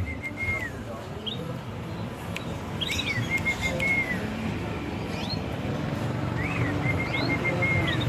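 Perkutut (zebra dove) singing its cooing song: three phrases about three seconds apart, each an up-and-down opening note followed by a run of short, even notes and a falling end note. Two short rising whistles, likely from another bird, sound between the phrases over a steady low background rumble.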